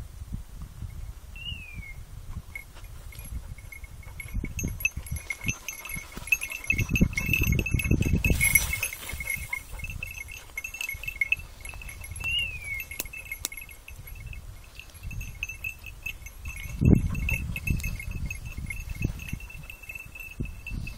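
Small bells jingling steadily, over a low rumbling noise that swells around the middle, with a single knock about three quarters of the way through.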